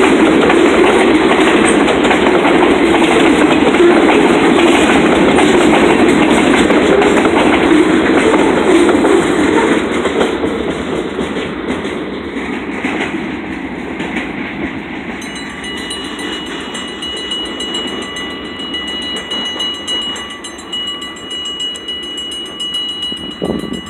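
Train cars rolling past at a grade crossing, their wheels running over the rails, loud for the first ten seconds and then fading away. From about fifteen seconds in, the crossing's warning bell rings on steadily as the train moves off.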